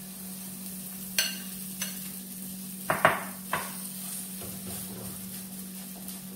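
Oat batter sizzling in melted butter in a frying pan, with a spoon clicking and scraping against the pan several times between about one and four seconds in as the batter is pressed and spread out. A steady low hum runs underneath.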